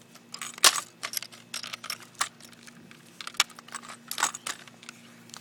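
Small metal and plastic survival-kit items being dropped and shuffled by hand into a hard red plastic box. They clatter and click in irregular knocks, with one sharp clack just under a second in.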